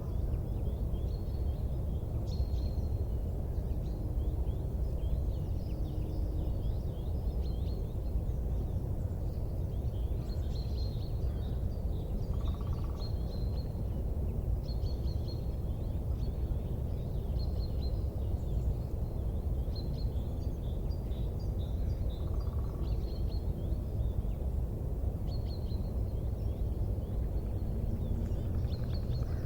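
Small birds chirping and twittering in short calls throughout, over a steady low rumbling noise.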